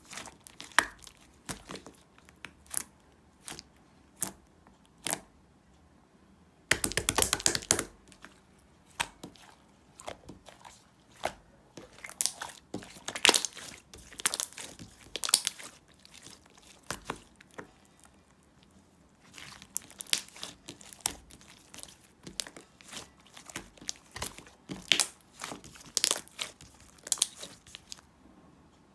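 Slime being squished and stretched by hand, giving irregular sticky pops and crackles, with a dense run of crackling about seven seconds in.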